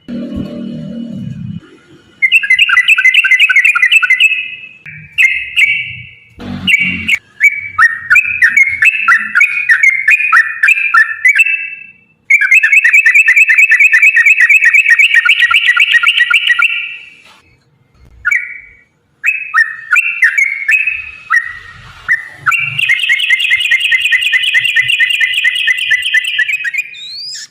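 Yellow-vented bulbul singing: loud, bubbling, liquid phrases repeated with short gaps, and two long rapid rolling trills of about four to five seconds each, the second near the end. A brief low sound at the very start and a sharp knock about six seconds in.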